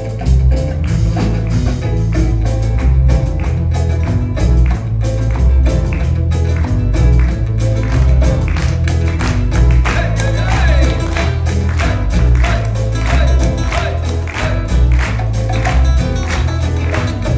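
Peruvian music played by a live band: a strong, steady bass line under plucked strings, with sharp percussion hits keeping a regular beat.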